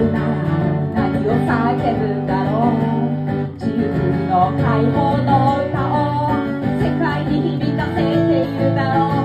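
Acoustic guitar strummed in steady chords with a singer's voice over it, a live solo song performance. The playing drops briefly about three and a half seconds in.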